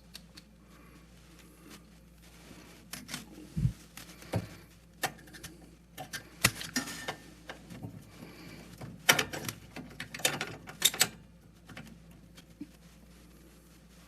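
Irregular clicks, taps and knocks of metal parts and tools being handled while a gas furnace's flame sensor and panels are put back together, with a busier cluster of clicks about nine to eleven seconds in.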